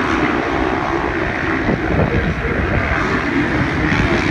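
Motocross bikes running around the track, a steady mixed engine noise with wind on the microphone.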